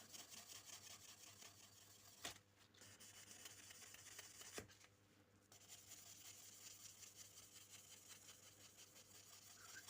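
Faint, quick, even back-and-forth rubbing of a nail buffer block's 'condition' side on a pocket-knife blade, polishing out the metal. Two sharp clicks come at about two seconds and four and a half seconds in.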